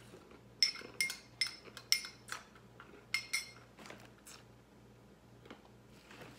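Metal spoon clinking against a small white ceramic bowl of granola: a quick run of about seven sharp, ringing clinks in the first half, then a few fainter ticks.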